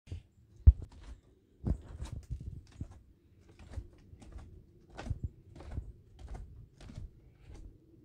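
Footsteps crunching on gravel, about two steps a second, with a sharp knock of the hand-held phone being handled under a second in.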